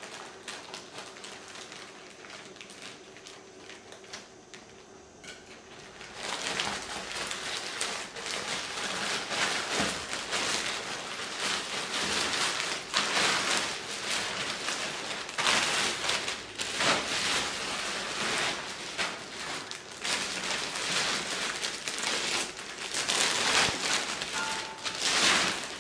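Plastic packaging being opened: at first faint snips and clicks as scissors cut into a plastic courier mailer, then from about six seconds in loud, continuous crinkling and rustling of the plastic mailer and clear plastic wrap as a handbag is pulled out, coming in repeated surges.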